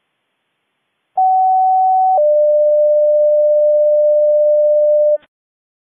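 Two steady electronic tones over dead silence: a higher beep for about a second, then a lower one held for about three seconds, cutting off suddenly.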